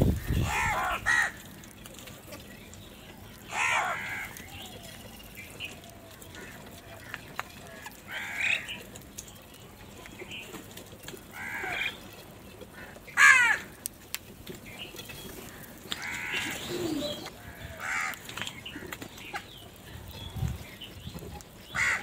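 A flock of house crows cawing: single harsh caws every two to three seconds from different birds, the loudest about two-thirds of the way through. A couple of low thuds come near the end.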